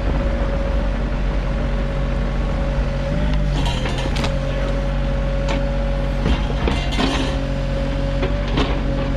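Sany SY35U mini excavator's diesel engine running steadily with a steady whine over it. Several short knocks and clanks come from the machine's middle and later part.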